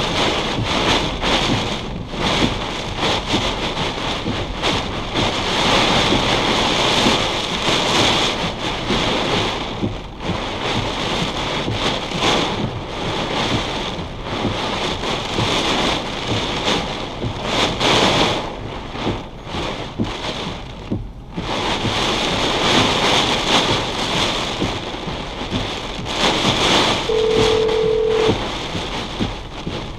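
Heavy rain and strong gusting wind of a severe thunderstorm battering a vehicle, the roar surging and easing every few seconds. A short steady beep sounds near the end.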